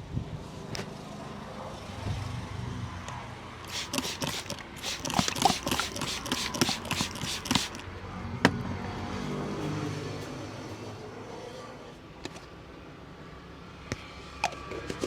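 Quick hand slaps and taps of a head massage, about four seconds of rapid strikes in the middle, over a steady low rumble of street traffic; a single sharp click follows shortly after.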